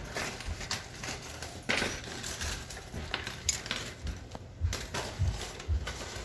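Small metal lock-picking tools clicking, scraping and rattling in irregular short bursts as a locked door is worked, with a few dull knocks near the end.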